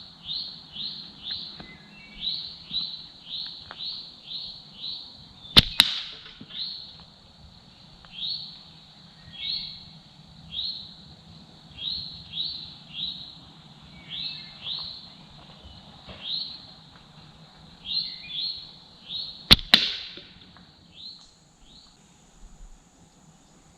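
Two slingshot shots with steel-ball ammo. Each is a sharp snap of the bands followed about a fifth of a second later by a crack, likely the ball hitting the target. A bird chirps throughout in short falling chirps, about two a second.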